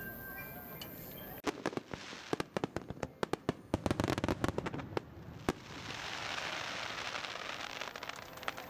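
Aerial fireworks: a rapid string of sharp bangs starting about a second and a half in, giving way after about five seconds to a dense, continuous crackling.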